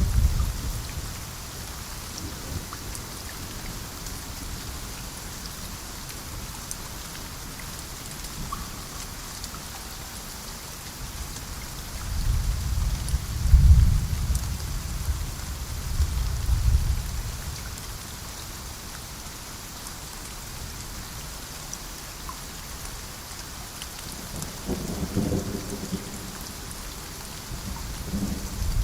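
Steady rain falling, with rolls of thunder: a low rumble about 12 seconds in that swells twice over several seconds, another near the end, and the tail of one at the very start.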